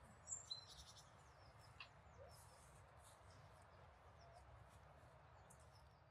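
Near silence: quiet outdoor ambience with a few short, high bird chirps about half a second in, over a faint steady low background noise.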